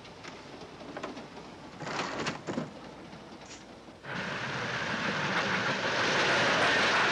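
Faint rumble of a moving train with knocks about two seconds in as a railway compartment's sliding door is shut. At about four seconds a passenger train running at speed takes over: a loud, steady rushing rumble that keeps growing louder.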